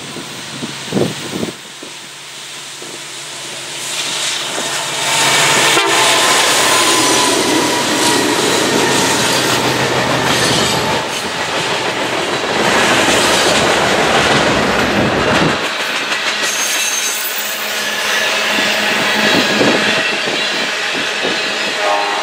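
A freight train headed by three diesel-electric locomotives (EMD SD70M-2, GE C44-9W and GE ES44AC) approaches and passes, the locomotive engines growing louder. About two-thirds of the way through, the deep engine sound drops away and loaded freight cars roll past with a steady clatter of wheels over rail joints.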